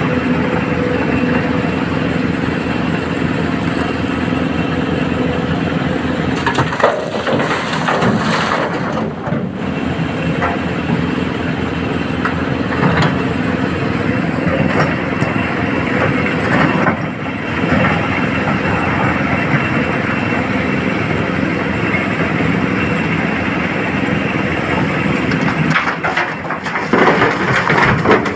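SANY hydraulic excavator's diesel engine running steadily under load while it digs and loads broken rock into a dump truck, with clattering crashes of rock about every ten seconds as loads drop into the truck's steel bed.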